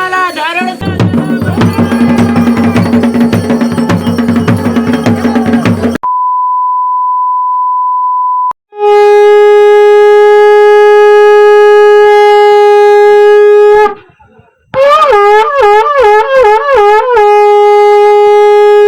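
Conch shell (shankh) blown in two long notes, the first held steady, the second warbling up and down before settling into a steady tone. Before it, a few seconds of music, then a single plain electronic beep.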